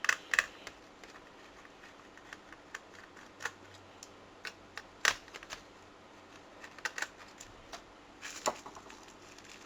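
Scattered small clicks and taps of a screwdriver and of parts being handled inside an opened laptop while its heatsink is being removed. The sharpest clicks come at the start, about five seconds in and near the end.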